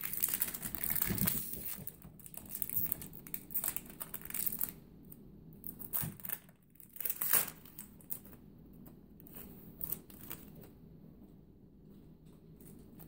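Foil wrapper of a Pokémon trading card booster pack crinkling and tearing as it is opened by hand. The crinkling comes in irregular bursts that thin out after about seven seconds, leaving only quiet rustling.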